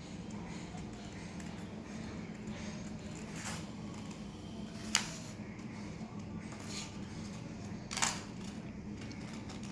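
Scissors cutting paper: a few separate sharp snips, about three and a half, five and eight seconds in, over a steady low hum.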